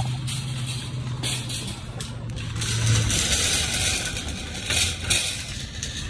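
Wire shopping cart rolling over asphalt, its wheels and basket rattling steadily with repeated surges. A low steady hum runs underneath for the first three seconds.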